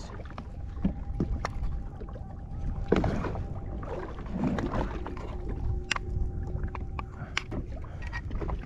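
Light taps and scrapes of rice being spooned and pressed into a musubi mould: a few scattered clicks over a steady low rumble.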